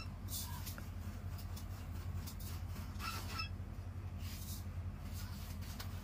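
Motorised pressure sprayer running with a steady low hum while a hose-fed wand sprays, with a few short, faint hissing bursts.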